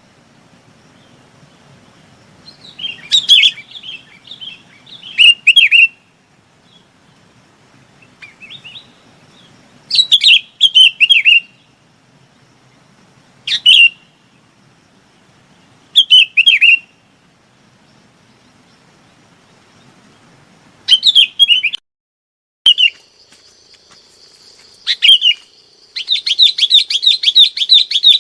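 Bulbul (chim bông lau) giving short, bubbly chirping call phrases every two to three seconds, the kind of flock call played as a lure for trapping. Near the end the bird breaks into a fast run of rapidly repeated notes over a steady high tone.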